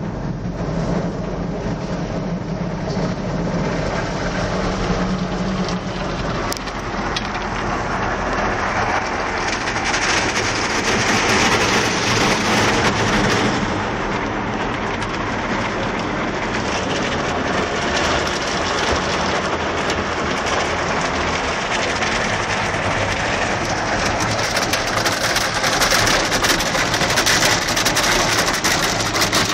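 Automatic car wash water spray and cloth brushes beating on the car, heard from inside the cabin: a loud, steady rush like heavy rain on the roof and glass. It swells louder about a third of the way in and again near the end.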